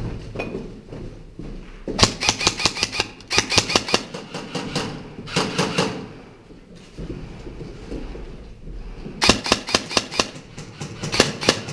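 ForceCore FC-122 airsoft replica firing several short full-auto bursts of rapid sharp clicks, the first about two seconds in and another starting just before the end.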